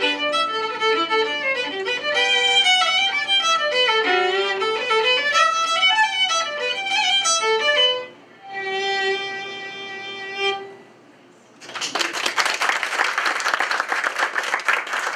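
Solo fiddle playing a quick folk tune that ends on one long held note. After a short pause, audience applause starts about twelve seconds in.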